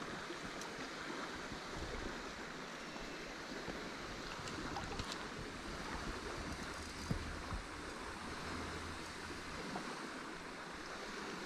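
River water running steadily, with one small knock about seven seconds in.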